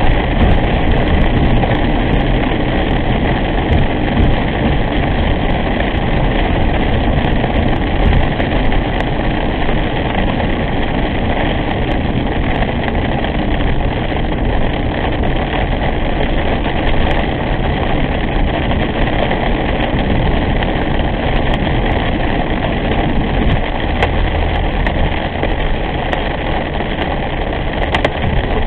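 Steady road noise inside a car driving on a wet highway: tyre hiss on wet pavement with the engine running, and a few light ticks.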